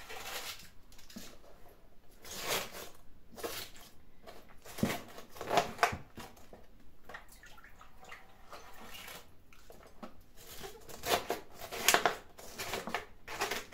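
Vegetables for pickling being packed and pressed down by hand into a container: irregular squishing, rustling and light knocks, with louder handling noises about two and a half seconds in, around five and a half seconds in, and near the end.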